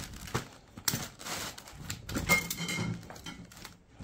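Handling of a cardboard pizza box: light clicks and knocks, with a short scraping rustle about a second in.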